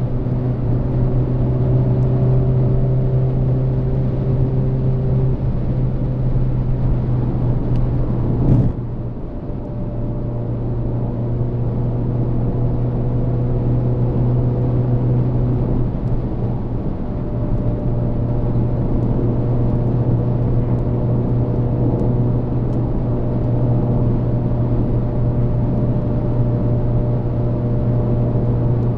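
Volkswagen Golf Mk8 1.4 TSI at high motorway speed, heard inside the cabin: a steady engine and road drone with a low hum. About eight and a half seconds in there is one short sharp knock, then a brief drop in loudness before the drone builds back up.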